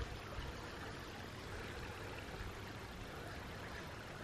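Soft, steady rush of water with no distinct splashes or other events.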